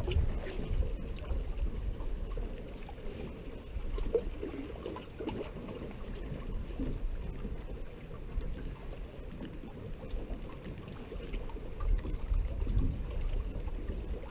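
Wind buffeting the microphone, heaviest at the start and again near the end, over choppy lake water lapping against a small boat's hull.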